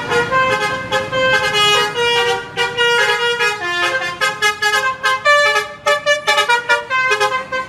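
A bus's 'telolet' musical air horn playing a quick tune, its notes stepping up and down one after another with hardly a break.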